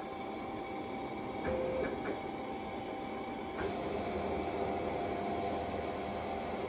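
Roland BN-20 wide-format inkjet printer running a test print with its newly installed printhead: a steady mechanical whir of the carriage and paper feed with a constant tone. The running sound changes about a second and a half in and again around three and a half seconds in.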